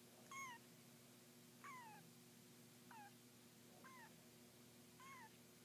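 Three-week-old kittens mewing: five short, faint, high calls about a second apart, each falling in pitch at its end.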